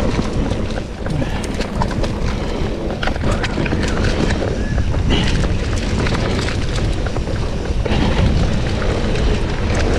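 Mountain bike descending a rough dirt trail at speed: a steady rush of tyre and wind noise on the microphone, with frequent sharp clicks and knocks from the bike rattling over stones and ruts.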